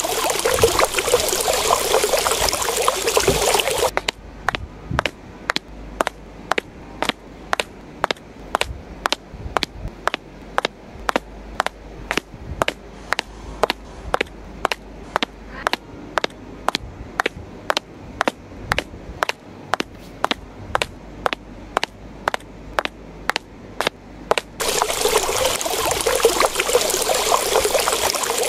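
Water pouring from a small toy watering can and splashing onto sand, for about four seconds at the start and again for the last four seconds. In between, a steady series of sharp clicks, about two a second.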